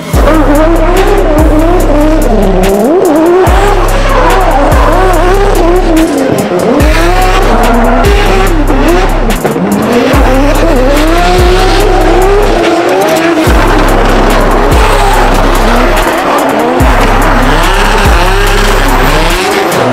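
Drift cars' engines revving up and down hard while their tyres squeal in long slides, mixed with music that has a heavy bass beat.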